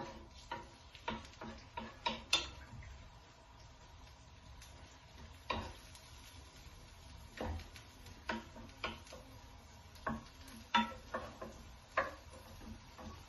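Wooden spoon stirring and knocking against a metal frying pan at irregular intervals, over a faint sizzle of chopped herbs and spices frying in oil.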